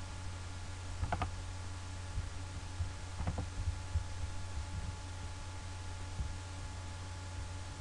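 Steady low electrical hum, with two short clicks, one a little over a second in and one past three seconds.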